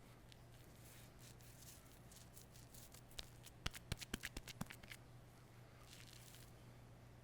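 Manual razor scraping over stubble in short, faint strokes. A quick run of about eight sharp clicks comes in the middle.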